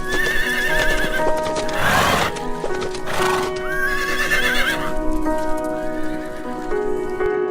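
Two wavering, quavering high-pitched animal calls, one at the start and one about four seconds in, with two short breathy blasts between them, over background music.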